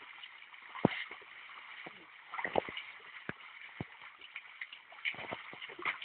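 Field ploughing: irregular sharp knocks and thuds over a faint steady high hiss, with a cluster of knocks about five seconds in.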